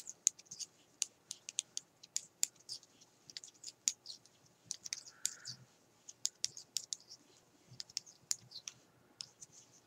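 Metal knitting needles clicking against each other as stitches are worked, in short irregular light clicks, several a second.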